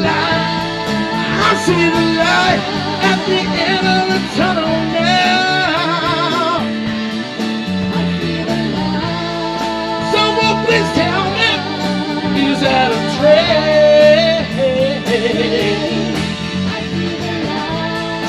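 Live soul band music: singers at full voice over electric guitar and the rest of the band, with no words the recogniser could make out.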